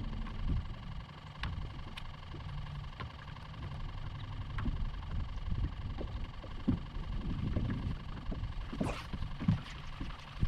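A boat motor running steadily at low power, with a few light clicks and knocks.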